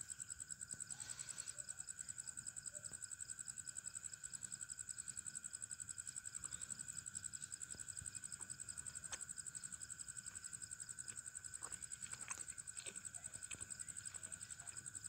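Crickets chirping: a steady, fast, evenly pulsing high trill, with a few faint clicks.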